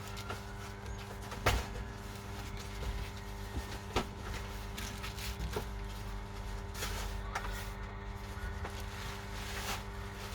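Scattered sharp clicks and taps of small tools and phone parts being handled on a repair bench during an iPhone screen replacement, over a steady low electrical hum.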